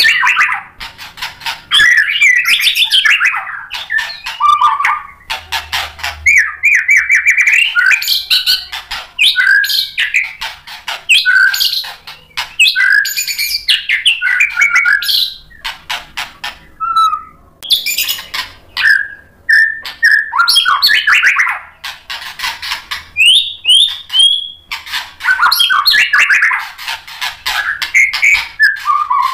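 White-rumped shama (murai batu) in full song: long bursts of fast, varied whistled phrases and trills mixed with sharp clicking notes, broken by a few short pauses.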